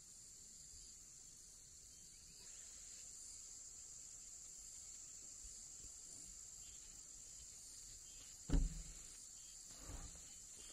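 Faint, steady, high-pitched insect chorus. A dull thump about eight and a half seconds in is the loudest sound, and a softer thump follows about a second later.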